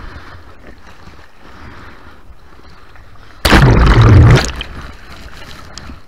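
Surf whitewater rushing around an action camera held at water level, then about three and a half seconds in a loud, sudden crash of water lasting about a second as the breaking wave swamps the camera.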